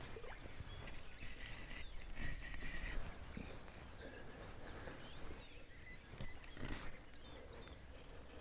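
Faint outdoor ambience of birds calling and chirping, with a few soft knocks and rustles of gear being handled at the water's edge.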